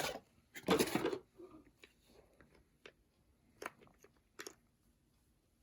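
Plastic handling noises from a Henry Quick cordless stick vacuum's body near its battery: a short scrape about a second in, then a few light, sharp clicks and knocks.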